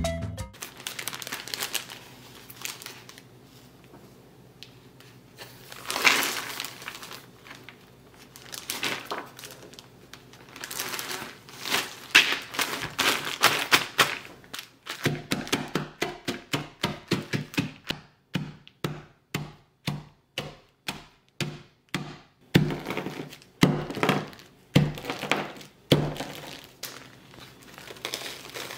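Shelled pistachios in a plastic bag: the plastic crinkles as the bag is handled, then from about halfway comes a long run of steady thuds, roughly two a second, as the nuts are pounded and crushed inside the bag.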